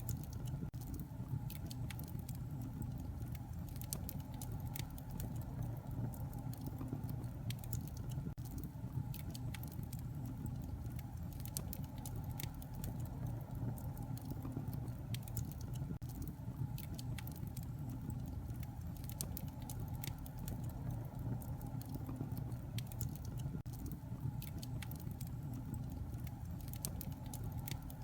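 Fire in a fireplace crackling: a steady low rumble of flames under frequent, irregular sharp pops and snaps.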